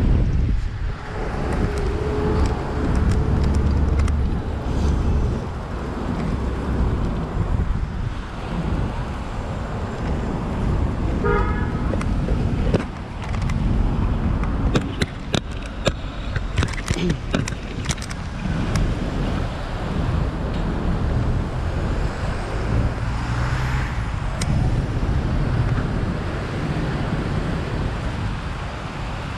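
Wind buffeting the microphone of a camera on a moving bicycle, over street traffic. A short horn toot comes about eleven seconds in, and a run of sharp clicks and rattles follows a few seconds later.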